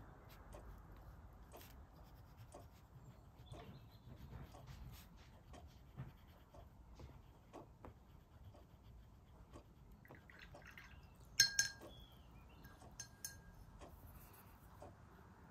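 Faint small taps and scratches of a crayon on paper, then a glass jar clinking sharply about eleven and a half seconds in, with a lighter clink about two seconds later.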